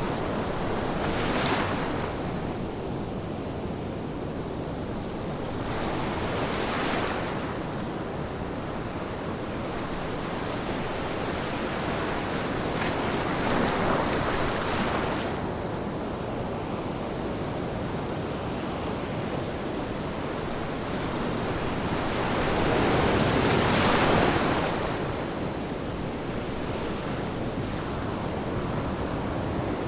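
Ocean surf breaking on a beach: a steady wash of water with waves surging and falling back four times, the loudest about three-quarters of the way in.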